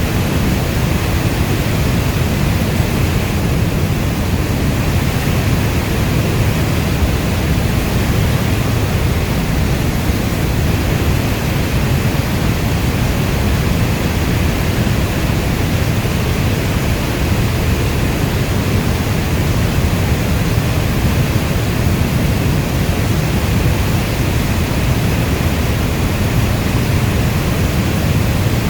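Steady heavy rain: a dense, even rush of noise, strongest in the low end, with no single drops standing out.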